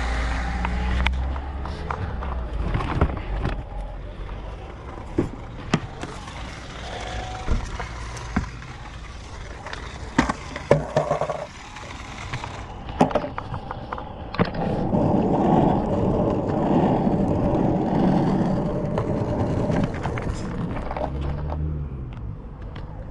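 Small hard wheels rolling over pavement, with scattered clicks and knocks. The rolling grows steadier and denser for several seconds in the second half. A low engine hum is heard at the start.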